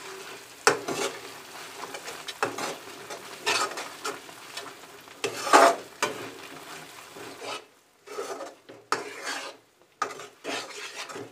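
Steel spatula scraping and stirring thick beetroot halwa round a metal kadai in irregular strokes, with a light sizzle from the mixture cooking in ghee. The strokes pause briefly about eight and ten seconds in.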